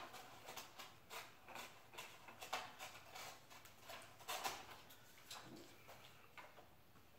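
Faint, irregular ticks and scratching from a pinball hardtop's flexible plastic sheet being handled and worked by hand, thinning out near the end.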